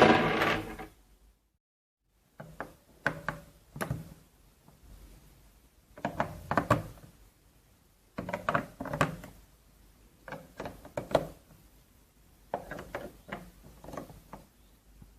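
A short loud pitched burst at the start, then five groups of sharp clicks and knocks from small hard parts being handled.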